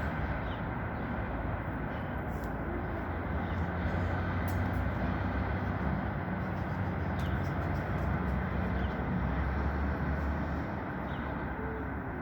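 Steady rumble of a motor vehicle's engine with street noise, its low hum strongest through the middle.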